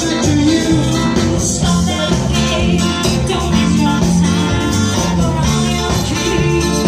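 Band music with a steady beat, loud throughout.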